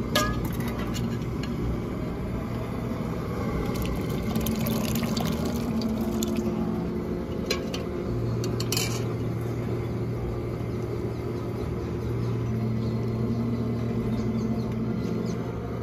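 Thin liquid being ladled and poured into a large aluminium pot of dal, with a few sharp clinks of a steel ladle against the pots over a steady low rumble.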